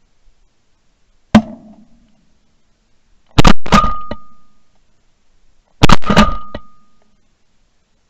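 Three shotgun shots. The first, about a second in, is a single sharp report. The next two, about two and a half seconds apart, are each followed within half a second by a few more sharp cracks, a short ringing note and a long fading tail.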